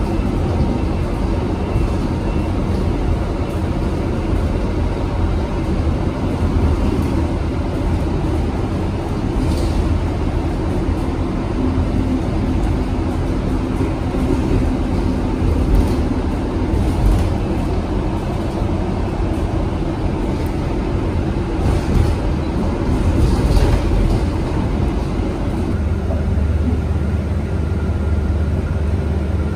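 Electric city bus riding, heard from inside the cabin: a steady road and tyre rumble with a low hum, and a few faint rattles.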